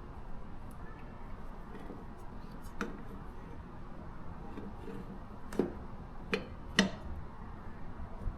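Steel lawn mower blade being handled and fitted back onto the mower: four light clicks and knocks, one a few seconds in and three more close together in the second half, the last the loudest.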